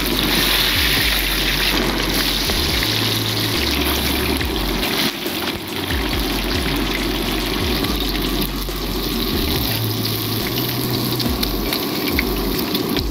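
Marinated fish pieces deep-frying in hot oil in a large wok: a steady sizzle and bubbling.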